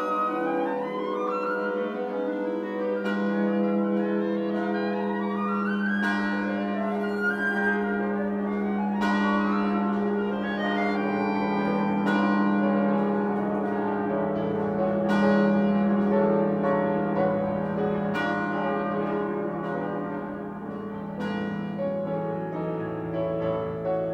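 Orchestral music: a held low note under sustained chords, with struck notes recurring every few seconds.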